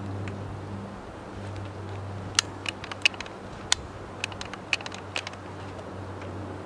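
Irregular sharp clicks and clacks of a Kel-Tec RFB bullpup rifle being handled as its action and magazine are worked after a failure to feed, with a round jammed inside. A low steady hum runs underneath.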